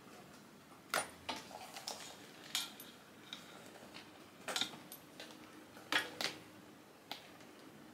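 Small metal clicks and clinks from a handbag's silver turn lock and hardware as its leather-trimmed wicker lid is worked open: a scattered series of sharp clicks, some in quick pairs, with faint handling rustle between.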